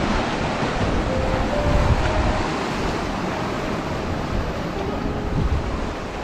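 Sea waves washing steadily onto the shore, with wind rumbling on the microphone.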